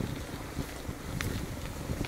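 Wind buffeting the microphone: an uneven low rumble, with one short click about a second in.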